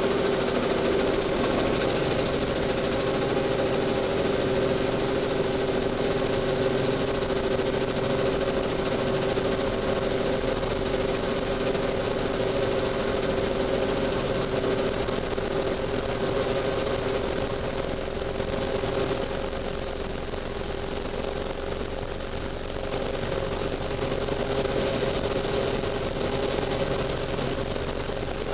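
Helicopter engine and rotor heard inside the cabin in flight: a steady drone with a constant whine, easing off a little for a few seconds past the middle.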